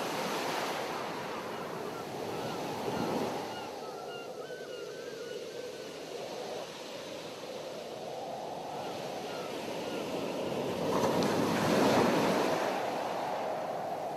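Ocean surf: waves breaking and washing up the beach in slow swells, the loudest near the end.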